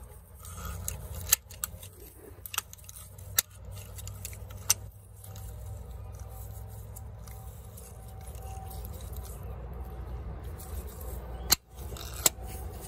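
Vise grips clamped on the old oil pressure switch of a Toyota Tundra's 4.0 V6, clicking and scraping on metal as the switch is worked loose. There are a handful of sharp metal clicks, spread out, over a low steady rumble.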